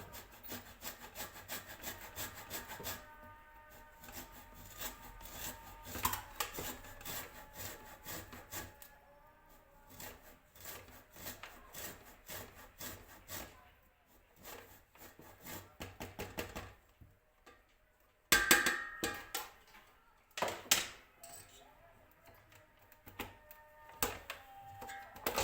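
Lemon being grated for its zest on a hand grater: quick repeated scraping strokes in runs with short pauses, and a few louder knocks in the last third.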